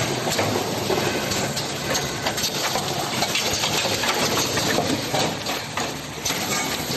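Industrial A4 paper ream packaging machine running: a steady mechanical clatter with many quick clicks.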